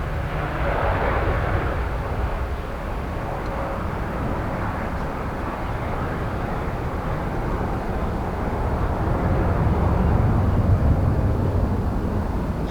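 Jet airliner engine noise at an airport: a steady low-heavy roar that grows louder about nine seconds in and then eases slightly.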